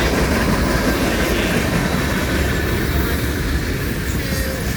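Freight cars of a long manifest train rolling past, a steady loud rumble and clatter of steel wheels on the rails.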